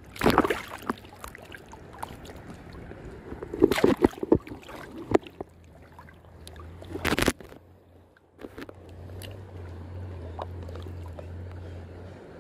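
Shallow seawater sloshing and splashing around a wading angler's legs, with several loud splashes in the first seven seconds. A steady low hum takes over from about nine seconds in, while the spinning reel is being cranked.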